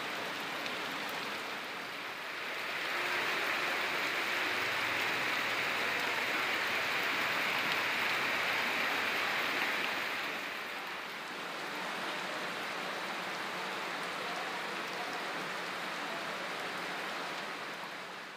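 Heavy rain pouring steadily onto the ground and potted plants, a dense even hiss. It grows louder a few seconds in, eases a little past the middle, and fades out at the very end.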